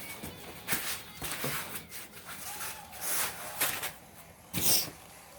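Rustling and scraping of packaging being handled while a boxed guitar amp is opened, in a series of short bursts with the loudest about four and a half seconds in.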